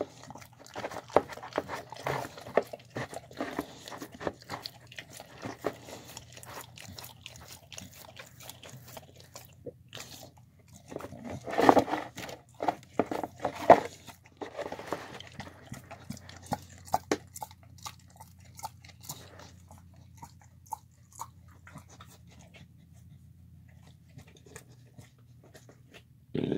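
A dog eating chicken, cabbage, spinach and rice from a plastic bowl: irregular chewing and crunching, busiest about halfway through and sparser toward the end.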